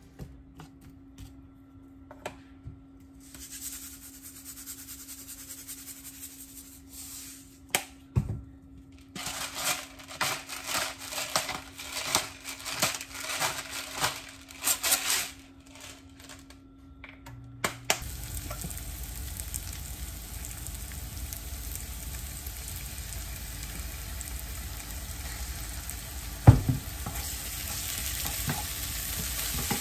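A hand-twisted pepper mill crackles in a run of quick grinding ticks over the pan. Then sliced onions sizzle in a nonstick frying pan as they are stirred, with a single knock of the utensil against the pan near the end.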